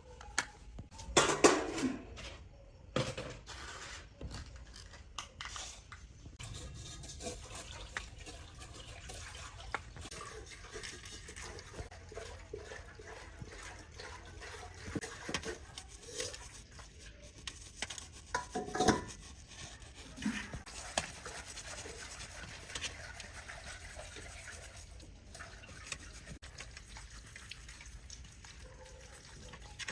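Small-brush scrubbing and rubbing with light clicks and taps of small tools, as in cleaning watch parts. Two louder squeaky scrapes come about a second in and again near the middle.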